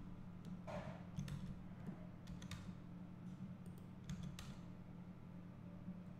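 Faint computer mouse clicks and keyboard key presses, several sharp separate clicks over a steady low electrical hum.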